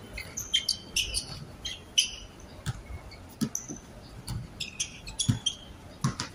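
Basketball shoes squeaking in quick, high chirps on the court surface as players cut and stop, with a basketball bouncing a few times in the second half.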